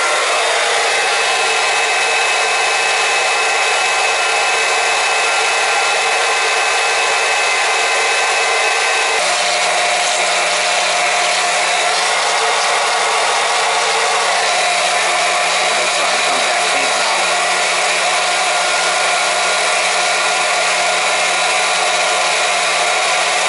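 Electric pump running steadily, circulating antifreeze from a bucket through the hydronic heating system to purge the air out. Its tone shifts slightly about nine seconds in.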